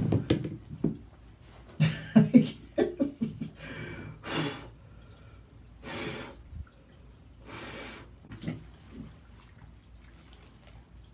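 A man splashing and thrashing in a bathtub full of bubble foam, then three breathy puffs about a second and a half apart, with a short knock near the end before it goes quiet.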